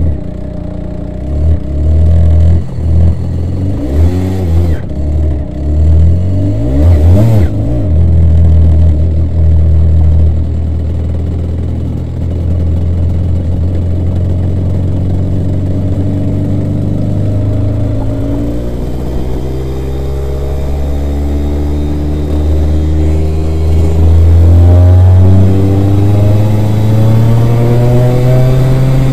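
250cc twin-cylinder two-stroke superkart engine, heard from on board. It revs in short, choppy bursts at first as the kart pulls away, then runs more steadily and pulls up through the gears near the end in a series of rising sweeps in pitch.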